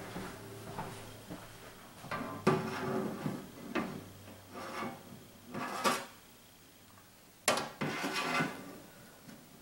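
Long tongs knocking and scraping against a clear plastic tarantula enclosure: a handful of sharp knocks with rubbing in between, the loudest about two and a half and seven and a half seconds in.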